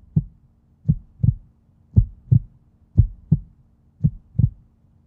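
Heartbeat sound effect: paired low lub-dub thumps, about one pair a second, over a faint steady hum.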